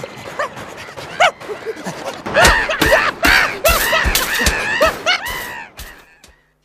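Cartoon sound effects: a rapid string of short rising-and-falling yelps or cries, about three a second, mixed with sharp knocks and crashes, fading out near the end.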